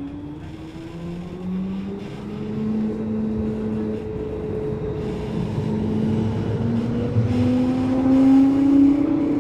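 Siemens NF8U tram's electric traction drive whining as the tram speeds up, several tones rising slowly in pitch over the low rumble of its running, growing louder toward the end.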